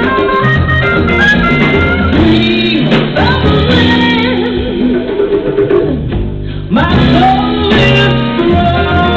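Live jazz band playing, with horn lines over piano, double bass and drums, and a female vocalist singing long notes with wide vibrato through the middle. The band drops out briefly about six seconds in.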